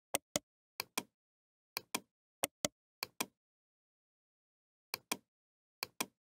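Computer mouse clicking in quick pairs, seven pairs of sharp clicks spread over about six seconds.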